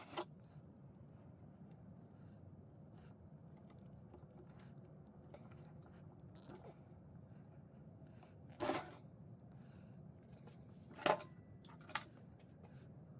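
A few short knocks and clatters of hands working on an old cast-iron sewing machine as a toothed rubber drive belt is fitted onto its handwheel, the loudest knocks about two-thirds of the way in and near the end, over a faint low hum.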